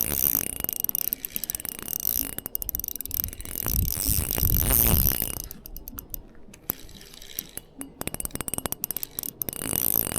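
Shimano Vanford 500 ultralight spinning reel clicking and ratcheting as a hooked trout pulls line off the drag and the reel is cranked in. The clicks come in quick runs, thickest in the second half.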